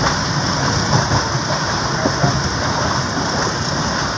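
Passenger train running along the track, heard from an open doorway: a steady rumble of wheels on the rails mixed with a hiss of rushing air.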